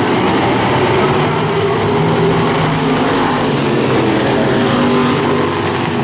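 Engines of a pack of dirt-track stock cars racing at speed, several loud engine notes overlapping and rising and falling as the cars pass.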